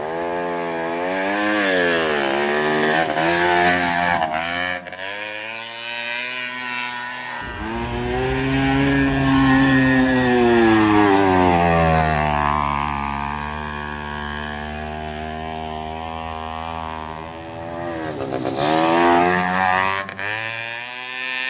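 E-Ton TXL 50 mini ATV's small two-stroke engine revving up and down under throttle on a dirt hill climb. The pitch rises and falls several times, and it is loudest about eight to eleven seconds in.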